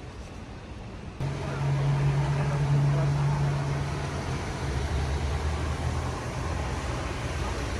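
A motor vehicle's engine running steadily, starting abruptly about a second in, its pitch dropping partway through.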